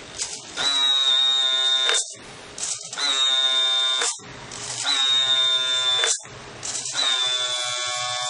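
Remote-control model truck giving a buzzing, pitched tone in repeated bursts, four times, each lasting about a second and a half, roughly every two seconds.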